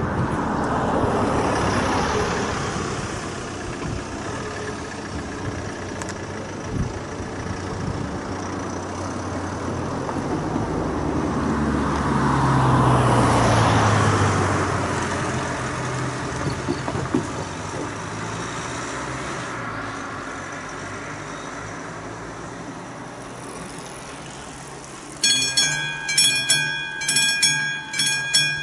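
Road traffic passing the crossing, with one car loudest about 13 seconds in. About 25 seconds in, the level crossing's classic warning bell starts ringing suddenly in rapid, ringing strokes, the signal that a train is approaching.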